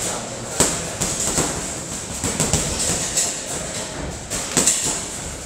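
Gloved punches landing on several heavy punching bags, an irregular run of thuds and slaps from different bags. The sharpest hit comes about half a second in, over steady background noise.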